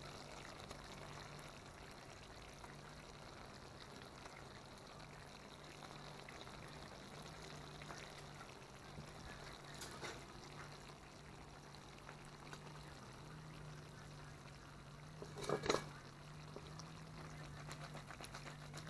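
Curry fish gravy simmering faintly in a pot over a wood fire, with a steady low hum beneath it and light ticks near the end. A brief louder sound comes about fifteen seconds in.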